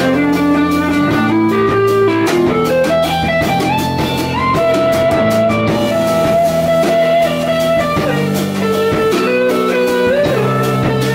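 Two electric guitars and a drum kit playing live instrumental music. A guitar line climbs step by step about two seconds in and then holds a long note, over sustained chords and steady cymbal and drum strokes.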